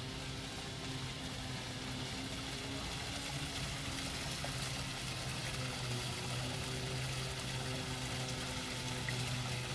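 Outdoor water fountain splashing steadily, with a steady low hum underneath.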